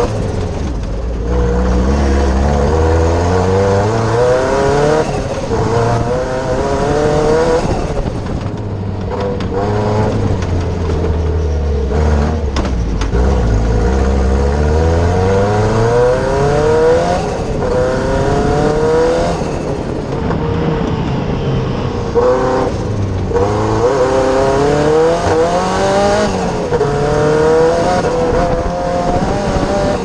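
Engine of a Fiesta Proto Cosworth off-road racing prototype under hard acceleration, heard from inside the cockpit. The engine note rises in pitch again and again as it pulls through the gears, dropping back at each shift before climbing once more.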